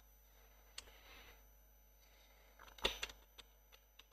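A few faint computer keyboard keystrokes over near-silent room tone: a single tap just under a second in, then a quick run of three or four near three seconds.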